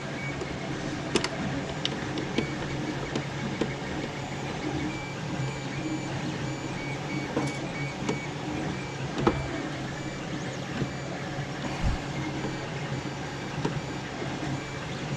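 Creality LD-001 resin printer's Z-axis stepper motor running steadily, driving the build platform back to its home position, with a few light clicks.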